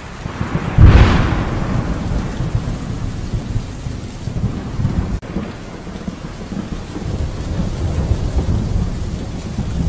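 Thunder in a rainstorm: a sharp clap about a second in, then uneven rumbling that goes on over steady rain.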